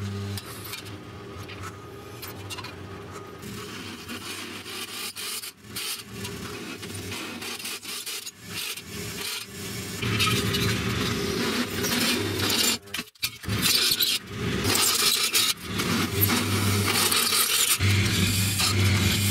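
Drill press running with its bit cutting through steel flat bar: a steady motor hum under a scraping, grinding cutting noise. The cutting comes and goes, with a few short breaks, and is louder in the second half.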